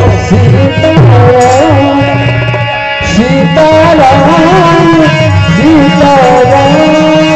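Kirtan music: a harmonium playing a melody with held chords, accompanied by brisk dholak drumming.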